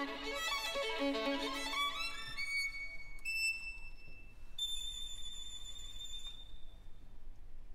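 Solo violin without orchestra, playing a fast passage, then a quick rising run up to a high held note that fades away.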